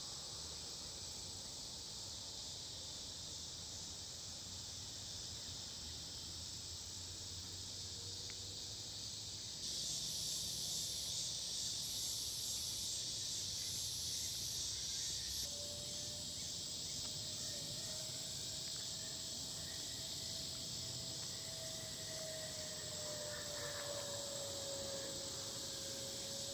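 Evening chorus of crickets and other insects, a steady high-pitched buzzing trill that swells louder for a few seconds partway through. From about halfway a faint, steady low hum joins in.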